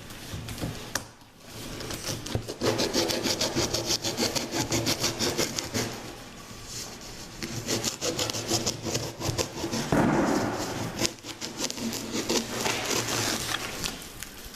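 Hand saw cutting through a cardboard shipping box in quick back-and-forth strokes, with a short break about a second in.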